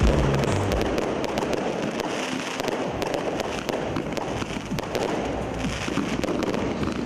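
Aerial fireworks display: a heavy low boom in the first second, then a dense crackle of many sharp pops.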